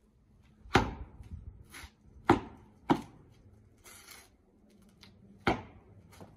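A Bajiquan practitioner's foot stamps and strikes on asphalt: four loud, sharp thuds, two of them close together, with lighter scuffs and short swishes between.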